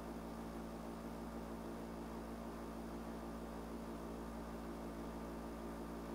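Steady low electrical hum with an even hiss: the background noise of the recording, with no other sound.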